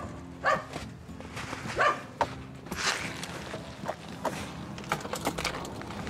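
A dog barking, about six separate barks spread over a few seconds, over steady background music.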